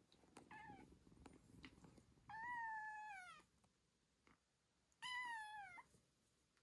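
Kittens meowing during play-fighting: one short call, then two longer calls of about a second each that drop in pitch at the end. Soft scuffling of the kittens wrestling on a padded mat underneath in the first couple of seconds.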